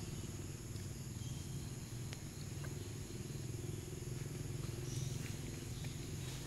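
Outdoor ambience: a steady low hum and a constant high insect drone, with a few faint, short high chirps.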